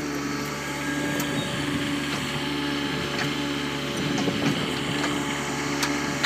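Engine of a small grapple-equipped log-handling machine running steadily with a hum, with scattered knocks and clicks over it.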